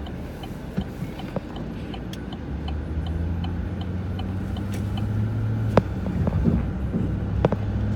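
A car driving, its engine and road noise a steady hum that gets louder from about a third of the way in, with a few sharp knocks near the end.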